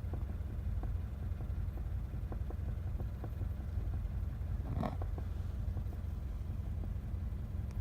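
Irregular light tapping and knocking, 'koto-koto, ton-ton', heard inside the cabin of a parked Toyota 86 from the engine bay in front of the driver's footwell, over a steady low hum. The taps come every fraction of a second at an uneven rhythm, with one louder knock a little past the middle. It is an abnormal noise whose cause the owner has not found.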